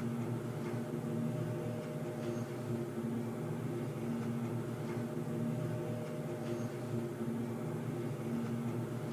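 Underground ambience sound effect: a steady low droning hum of several tones, some swelling and fading every couple of seconds, with a few faint ticks.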